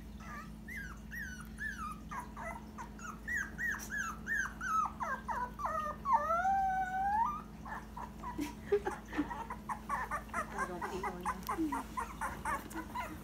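Dachshund puppy whining in a quick string of short, falling cries. About six seconds in it gives one longer, wavering howl, then breaks into rapid little yips and whimpers.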